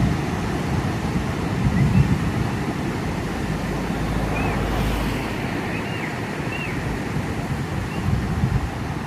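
Sea surf washing steadily, with wind rumbling on the microphone now and then. A few short, faint, high chirps come through the wash.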